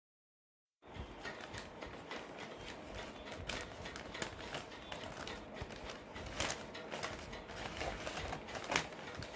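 Scissors cutting through a thick paper takeaway bag: a run of crisp snips with the paper crackling and rustling, starting about a second in, with the sharpest snip near the end.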